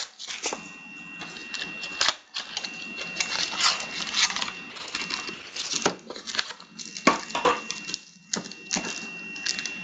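Wrapped trading-card packs and their cardboard box being handled: a run of rustling and crinkling with sharp clicks and knocks as the packs are pulled out and set down on the table. A faint steady high whine sits underneath.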